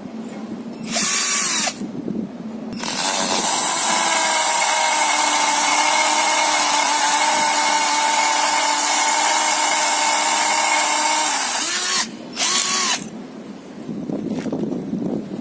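LOMVUM compact percussion drill's motor spun up by the trigger: a short burst about a second in, then a steady run of about nine seconds at constant speed, then another short burst near the end, the pitch falling as each one winds down.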